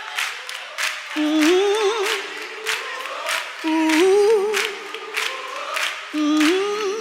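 Voices singing a repeated, wavering phrase three times over a steady beat of sharp strikes, about two a second, like a cappella music with clapping.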